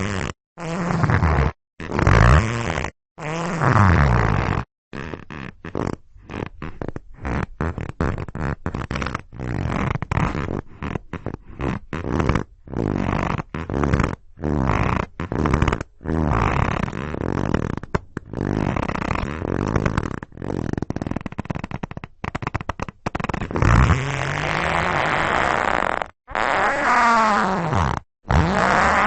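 Hard leather creaking, as of a squeaky leather chair: a long run of separate creaks and squeaks with short silent gaps between them. The creaks come short and rapid in the middle, and longer, with a sliding pitch, near the end.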